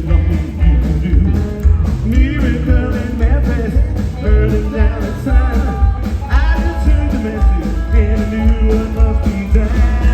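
Live rockabilly band playing loud: electric guitar and slap upright bass over drums, with a heavy, regularly pulsing bass beat.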